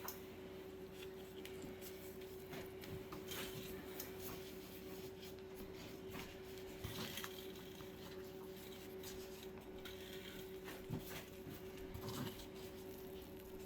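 Faint soft handling noises and light scattered clicks as raw rolled pork is worked by hand, over a steady faint hum.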